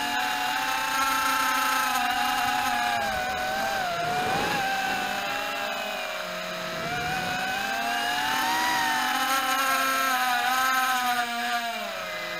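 Walkera Rodeo 110 quadcopter's motors and propellers whining in flight, the pitch rising and falling with the throttle. It drops sharply about four and a half seconds in and again near seven seconds, then climbs back, and settles lower near the end.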